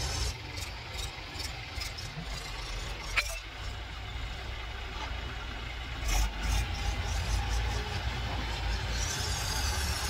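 Farm tractor engine running steadily, then revved harder about six seconds in as its hydraulics start tipping the loaded trailer. A single sharp click about three seconds in.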